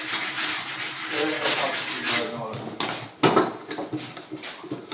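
Wood being sanded by hand with fast back-and-forth strokes that stop a little over two seconds in, followed by two sharp knocks and a few lighter taps.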